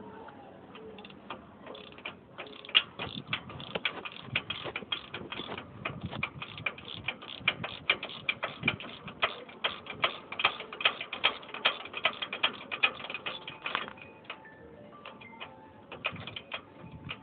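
A ratchet tool being worked in quick, uneven strokes, clicking a few times a second, and stopping about three-quarters of the way through.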